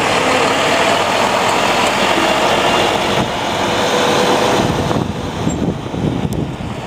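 Caterpillar CT660 dump truck's diesel engine running as the truck drives off across gravel, tyres rolling on the stones; the sound eases off after about five seconds as it pulls away.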